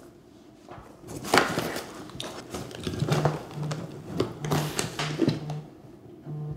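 Papers rustling and a cardboard box being handled. From about three seconds in, a mobile phone vibrates in a leather handbag in short repeated buzzes, often in pairs: an incoming call.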